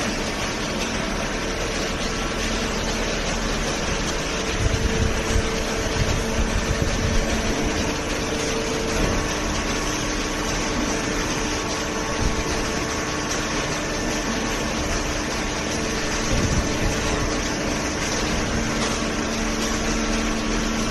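Hydraulic baler's motor and pump running with a steady hum, with a few low thumps partway through.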